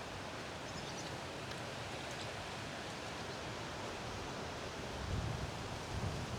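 Steady background hiss, with soft low rustling about five seconds in and again near the end.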